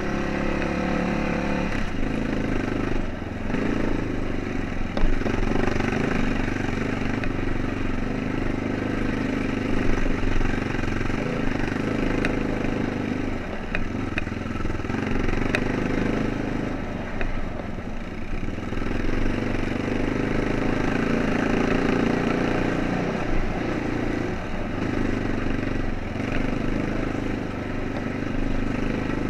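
ATV (four-wheeler) engine running on a dirt trail, its revs rising and dropping every few seconds as the throttle changes, with a few brief knocks from the machine over rough ground.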